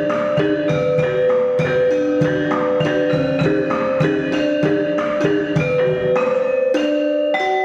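Instrumental music of struck, tuned percussion notes in a quick, steady pattern, several strikes a second, over long held tones.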